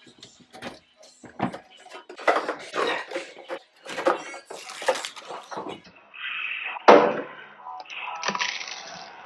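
Indistinct voices talking, with a sharp knock about seven seconds in.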